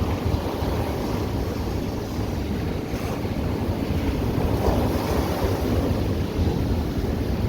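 Ocean surf washing steadily on the beach, swelling a little about halfway through, with a low wind rumble on the microphone.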